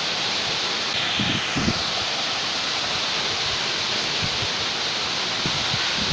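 Steady rushing of a waterfall, with a few brief low thumps about a second in.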